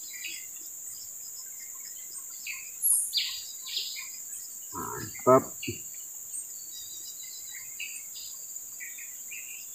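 Steady high-pitched insect drone with scattered short bird chirps.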